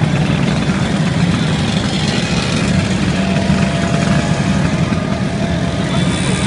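A long column of Vespa scooters riding past close by: the steady, mixed drone of many small scooter engines running together.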